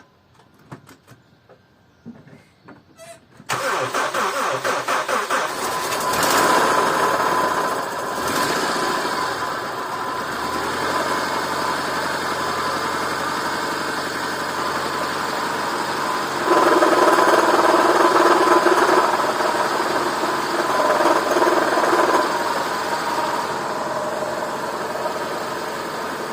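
2004 Honda Civic engine on its first start after a rod bearing replacement: a few faint clicks, then the starter cranks it for a couple of seconds and it catches and starts right up, running steadily. About two-thirds of the way through it runs louder for several seconds, then eases back.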